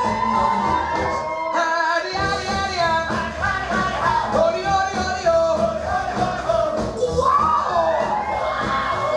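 Big-band swing music with brass and a singing voice, played over the hall's sound system. About one and a half seconds in, the band breaks briefly and the bass drops out.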